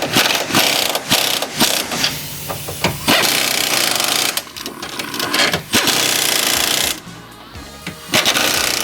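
3/8-inch impact wrench with a 13 mm socket hammering in repeated bursts, several short ones and then longer runs of about a second, as it runs down and tightens the top mounting bolts of a new front strut assembly.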